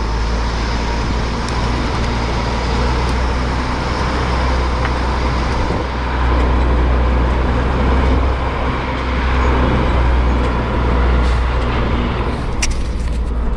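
Motorhome engine running with a steady low drone while the vehicle is driven.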